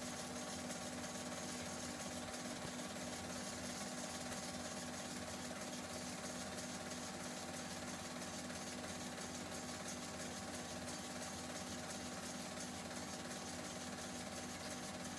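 Cine film projector running: a steady, fast mechanical clatter over a constant hum.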